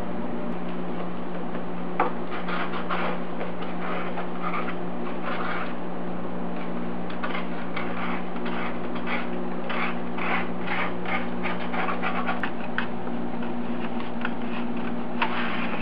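Thin card template rustling and scraping as it is bent and pressed around a turbocharger's turbine housing, then being cut with scissors, over a steady low hum.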